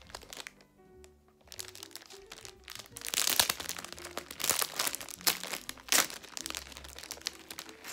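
Crinkling and rustling of thin plastic packaging of zipper storage bags as it is handled, loudest from about three seconds in until about six seconds in, with soft background music underneath.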